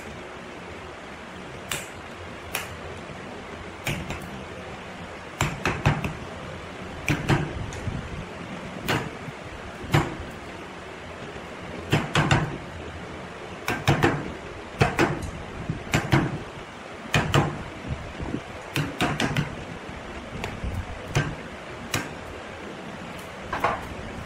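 Irregular knocks and taps, a few a second at their busiest, over a steady low background noise.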